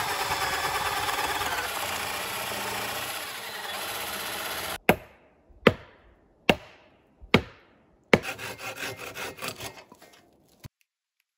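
A cordless drill boring into a log, running steadily for nearly five seconds, then four hard blows about a second apart on the timber frame. After that come quicker bow-saw strokes through wood, about three a second, which stop suddenly.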